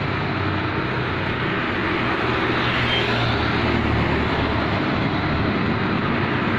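Road traffic: vehicles passing by with engines running and tyre noise, growing a little louder about two seconds in.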